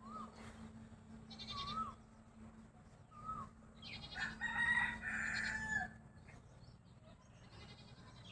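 Chickens calling: short, rising-and-falling chick peeps, and a longer, louder call from an adult bird about four seconds in that lasts nearly two seconds and drops in pitch as it ends.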